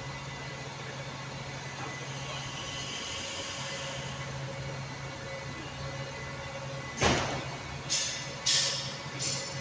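Steady low hum of an idling double-decker bus in a garage. About seven seconds in comes a sudden loud burst, then a string of short high hissing bursts about twice a second.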